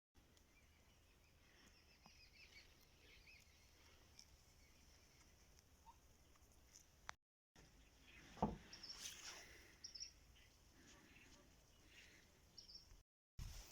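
Faint rural outdoor ambience with scattered small bird chirps and a single thump about eight and a half seconds in, broken by two brief dropouts to silence.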